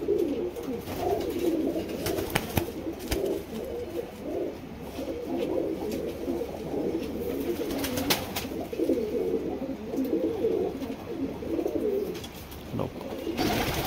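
Domestic pigeons cooing, many coos overlapping, with a few sharp clicks.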